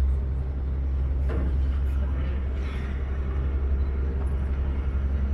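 Vaporetto water-bus engine running steadily while under way, a deep low drone.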